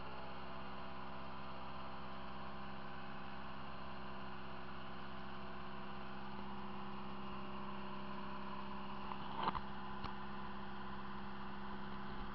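Outrigger boat's engine running steadily, a constant hum of fixed tones, with a short knock about nine and a half seconds in.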